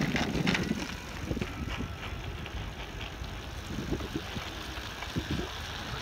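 A child's bicycle rolling along a gravel road: a steady rolling tyre noise with a low rumble underneath.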